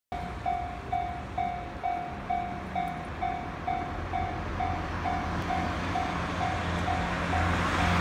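Japanese level-crossing alarm ringing, an electronic clanging tone repeating about twice a second, while the engine rumble of an approaching KiHa 40 diesel railcar grows louder toward the end.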